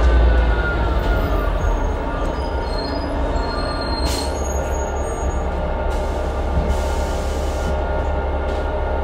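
On-board running noise of a 2012 New Flyer C40LF bus with a Cummins Westport ISL G natural-gas engine and Allison B400R transmission: a steady low engine rumble. A faint whine falls in pitch over the first couple of seconds.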